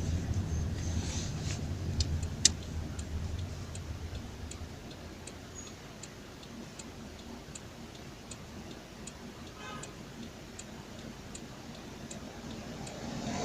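Turn-signal relay inside a Daewoo Nexia's cabin, clicking steadily at about four clicks every three seconds over the low idle of the engine, which fades in the first few seconds.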